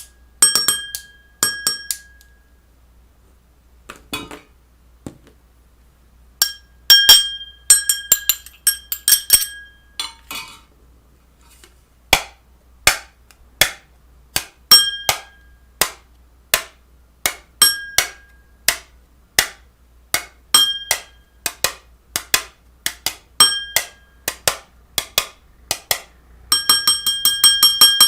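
A series of sharp clinks and knocks, some ringing with a high bell-like tone. From about 12 seconds in they come steadily about once a second, and near the end a fast run of ticks begins.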